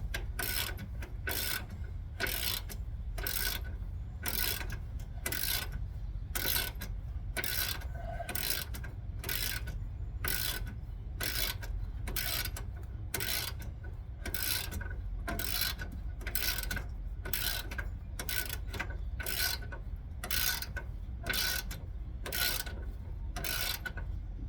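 Hand socket ratchet run back and forth in steady strokes, about two a second, clicking as it draws a bolt on the steering stabilizer shock up snug.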